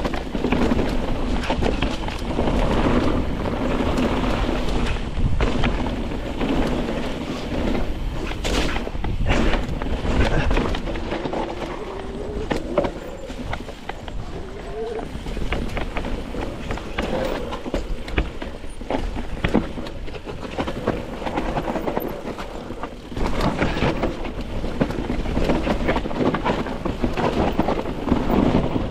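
Mountain bike riding down a rough dirt singletrack: tyres rolling over dirt and stones, with many quick rattles and knocks from the bike over bumps, and wind rumbling on the microphone.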